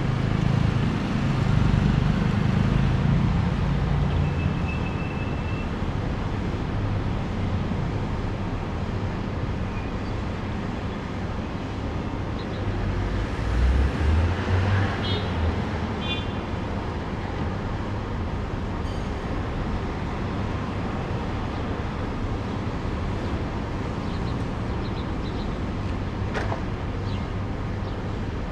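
Street traffic: cars passing through an intersection, a steady low rumble that swells as vehicles go by, loudest near the start and again about fourteen seconds in.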